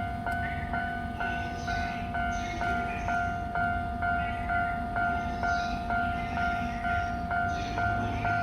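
Railway level-crossing warning bell ringing on and on in an even repeating pattern, about two to three strikes a second, over a low steady rumble. It keeps ringing because the stopped train is still holding the crossing.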